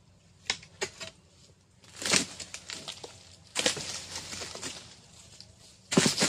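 Chisel blade on a long harvesting pole striking and prying at the fibrous stalk bases of an oil palm: a handful of separate sharp, crunchy chops, some trailed by rustling of fibre and fronds, the loudest near the end.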